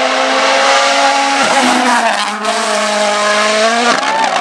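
Rally car engine running hard at high revs, holding a steady pitch with a sharp drop in revs about a second and a half in and again near the end, as it shifts gear.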